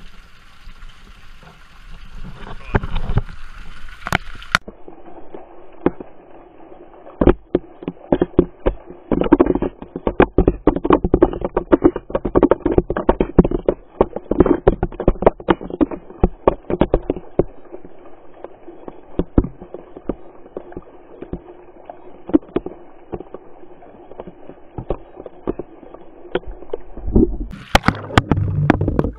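Fountain water splashing, at first as an open hiss. About four seconds in it turns muffled and becomes a dense, irregular crackle and popping of falling water and bubbles, heard underwater through the camera's waterproof housing. A short louder splashing burst comes near the end.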